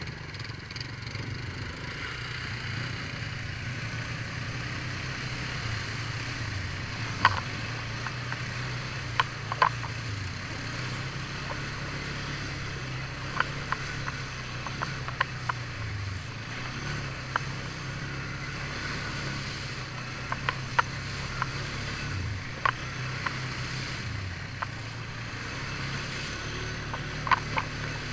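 ATV engine running at low trail speed, its pitch dipping now and then as the throttle eases off. Sharp clicks and knocks are scattered throughout as the quad rides over a rutted dirt trail.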